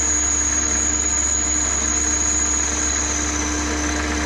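Chester benchtop metal lathe running steadily with a high whine over a low hum, its chuck spinning while the cutting tool is fed in to cut a shallow recess.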